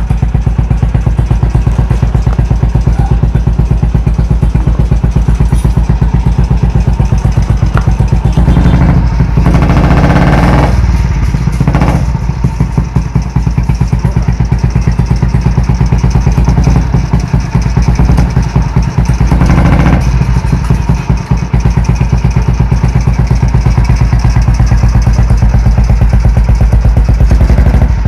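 Motorcycle fitted with an old diesel engine converted to run on petrol, running with a steady, rapid beat of firing pulses. It revs up briefly about nine seconds in and again near twenty seconds.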